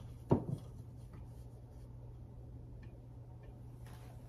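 A sharp knock just after the start, with a smaller one right behind it, as the small white wooden decorative ladder on the countertop is handled and knocked against the counter while a dish towel is hung on it. A few faint light ticks follow over a low steady hum.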